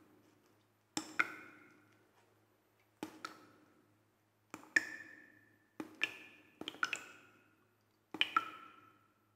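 A series of about six sharp taps or knocks, most in quick pairs, each with a short ringing tail, spaced a second or two apart.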